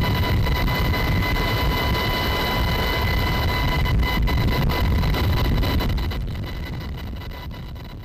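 UH-60 Black Hawk helicopter heard from inside its open cabin: a heavy, steady rotor and engine rumble with wind noise and a constant high whine. It fades out over the last two seconds.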